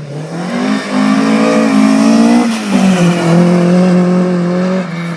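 Historic rally car's engine under hard acceleration, its note rising steadily, then a brief break and a lower pitch about two and a half seconds in as it shifts up, before it pulls on at a steady high note and drops away near the end.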